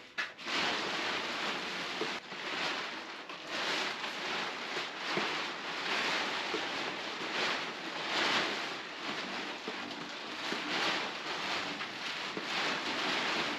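Plastic tarp rustling and crinkling as it is pulled and spread over a pile of timber, the noise swelling and easing again and again.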